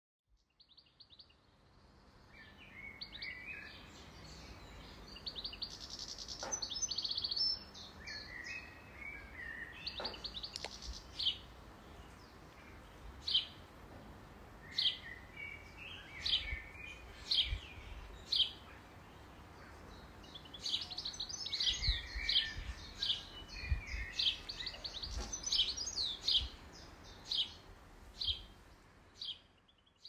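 Songbirds chirping and trilling, several calls overlapping, with one bird repeating a short high chirp about every second or so through the second half.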